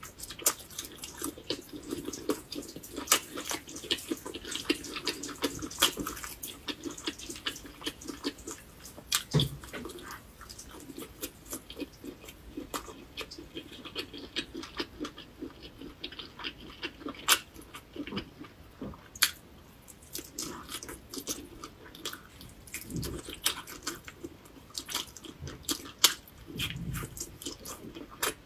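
Close-miked chewing of skewered fried meat: irregular wet mouth clicks and smacks as the food is chewed.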